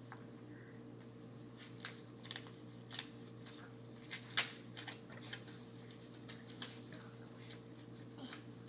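A paper greeting-card envelope being torn open and handled by hand: a scattered series of short paper crackles and rips, the sharpest about four seconds in.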